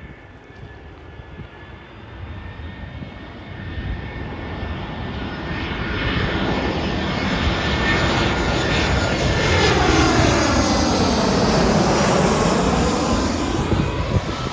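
Airliner's jet engines growing steadily louder as the aircraft approaches and passes low, loudest about ten to twelve seconds in and easing off near the end, with a sweeping rush and a faint steady high whine.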